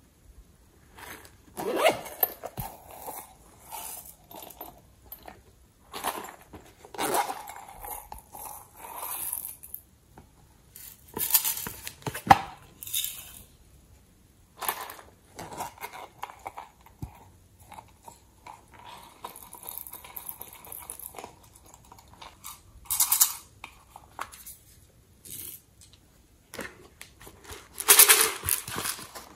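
Small plastic containers handled and opened by hand: irregular clicks, taps and rustling in bursts every few seconds, loudest near the end.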